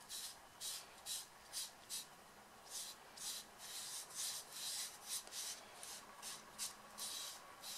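Pastel applicator tool rubbing pastel into paper in repeated short back-and-forth strokes, about two a second, each a soft dry scratch.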